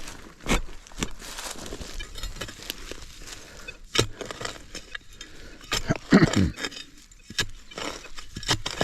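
Digging into stony ground with a shovel: a string of sharp scrapes and metallic clinks from the blade, loudest about six seconds in.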